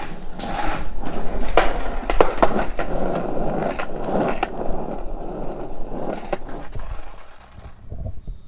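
Skateboard wheels rolling over concrete and then asphalt, a steady rolling rumble broken by several sharp clacks. The rolling dies away about seven seconds in.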